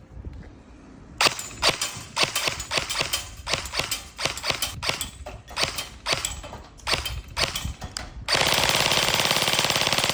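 Airsoft gun firing: a quick run of single shots, a few a second, starting about a second in, then a sustained full-auto burst of about two seconds near the end.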